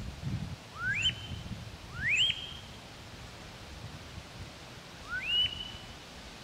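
Wood duck squealing calls: three rising squeals, each climbing steeply and then held briefly at the top, about a second in, two seconds in and about five seconds in, over a low steady rumble.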